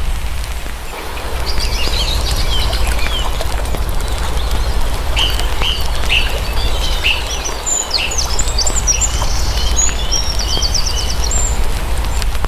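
Small birds chirping: many short, quick notes and sweeping calls, with a fast trill about two-thirds of the way in, over a steady low rumble.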